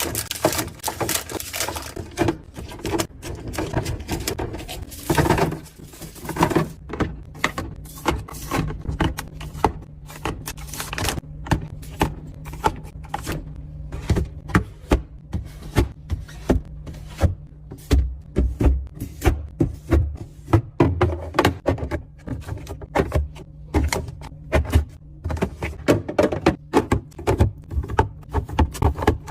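Refrigerator being cleaned out by hand: a long run of knocks, clunks, clinks and scrapes as containers, shelves and drawers are handled and set down, over a steady low hum.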